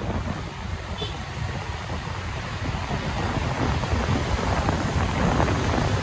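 Wind buffeting a microphone held out of a moving car's window, over a low rumble of road and traffic noise, growing louder toward the end.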